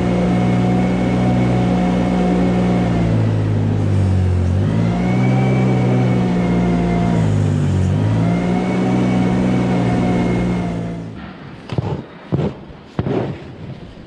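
Small farm loader's engine running steadily while scraping manure, its pitch dipping and climbing back twice. The engine sound cuts off about eleven seconds in, followed by a few sharp knocks.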